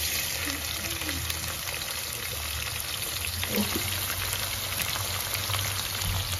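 Freshly added sliced red onions frying in hot oil in a pan: a steady sizzle with fine crackling.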